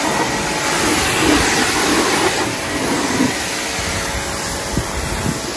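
Greenworks Pro 2300 electric pressure washer running steadily, its water jet spraying with a continuous hiss.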